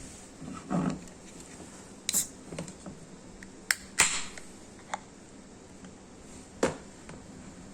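Clicks and light knocks of an aluminium beer can being handled. About four seconds in comes the loudest event, a sharp crack with a short hiss, typical of the can's pull tab being opened.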